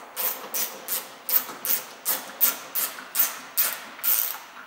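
Small hand ratchet with a 10 mm socket undoing tail-light screws, its pawl rasping on each back-stroke, about three strokes a second.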